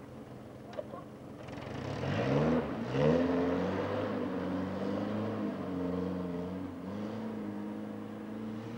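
Car engine revving as the car pulls away across snow: the pitch climbs about two seconds in, then settles into a steady running note. There is a single sharp click about a second in.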